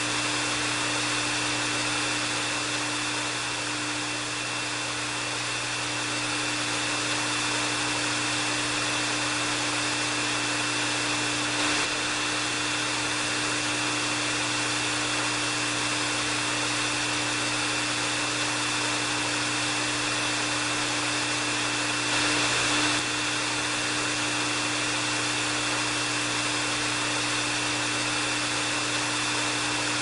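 Hair dryer running steadily: an even rush of blown air over a steady low hum and a thin high whine.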